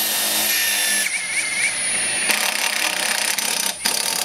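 HiKOKI WH36DC 36-volt cordless impact driver drilling a self-drilling tek screw into steel. The motor's steady whine changes to a harsher rattle about a second in. The run breaks off briefly twice before the screw seats.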